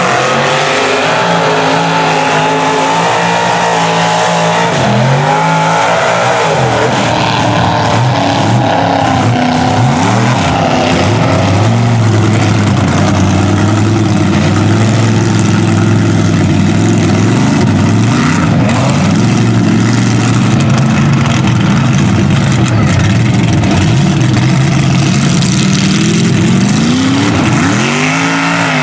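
Naturally aspirated big-block Chevy V8 in a mud truck running under heavy throttle through a mud pit, its pitch rising and falling as it revs, held high through the middle and revving up again near the end.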